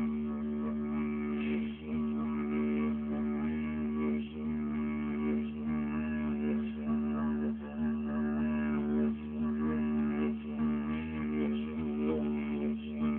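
Didgeridoo played in one continuous low drone, its upper overtones wavering and shifting in rhythm, with a few short dips in loudness.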